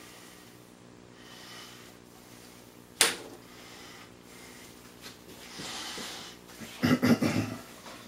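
A sharp click about three seconds in, then a cluster of knocks and rattles near the end, as the steel-backed FilaPrint Switch plate is handled and seated on the printer's magnetic bed. A steady low hum runs underneath.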